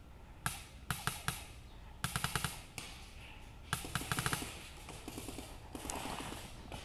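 Paintball markers firing: single pops and quick strings of five or six shots in several bursts. A rustle of movement comes near the end.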